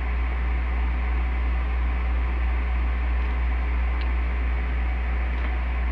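Steady hiss over a strong low hum, unchanging throughout, with one faint click about four seconds in.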